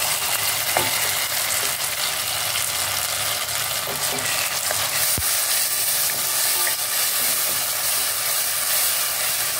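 Tomato purée frying in hot oil with shallots and garlic in a steel pot: a steady sizzle, with a wooden spatula stirring and scraping through it. There is a single sharp click about five seconds in.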